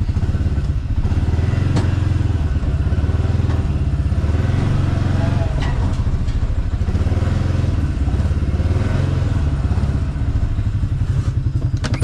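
Pickup truck engine running at low speed while reversing with a trailer, a steady low throb.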